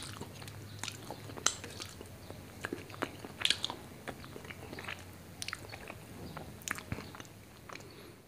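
Close-miked mouth sounds of a man eating rice and chicken liver curry with his hand: wet chewing, lip smacks and licking of his fingers, with sharp clicks at irregular moments that thin out near the end.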